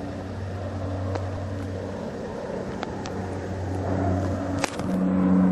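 Aircraft engine noise: a steady low hum with tones under a rushing haze, growing louder toward the end, with a sharp click near the end.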